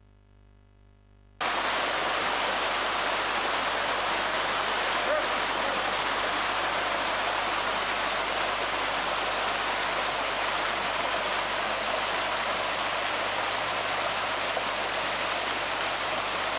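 Small waterfall: water cascading over rocks with a steady rushing noise that starts abruptly about a second and a half in.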